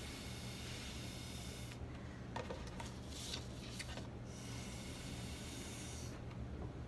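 Breath blown through a plastic drinking straw onto runny watercolour paint, a breathy hiss in three long puffs with short pauses between. There is a light click about two seconds in.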